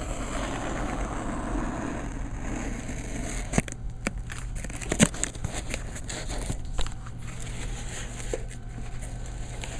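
Packaging rustling and crinkling as a mailed parcel is opened by hand, followed by a few sharp clicks and taps.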